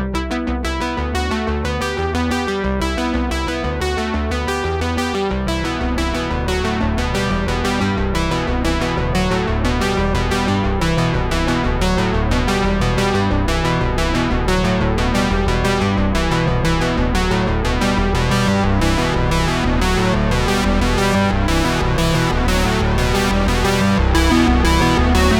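Background music: a synthesizer and electric-piano track with a steady beat and a bass line that fills out about five seconds in.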